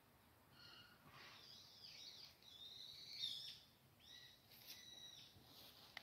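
Wild birds calling: a faint, continuous series of short, high chirps and whistled calls starting about half a second in, loudest about halfway through.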